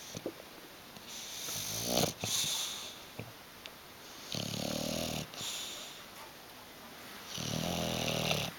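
English bulldog snoring in its sleep: three snores, each about a second long, roughly three seconds apart.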